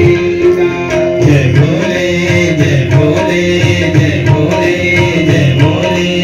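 Devotional bhajan being performed live: a singing voice over held melody notes and a steady hand-drum rhythm.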